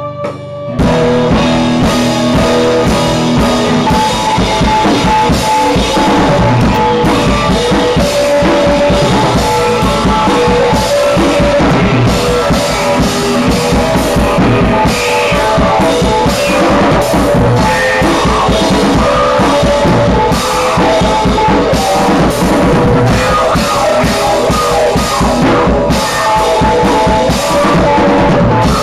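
Live rock band playing: drum kit with cymbals, electric guitars and bass. The full band kicks in loudly about a second in and plays on steadily.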